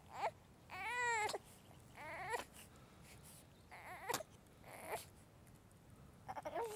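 A baby crying in a string of short wails, each under a second long, the loudest about a second in.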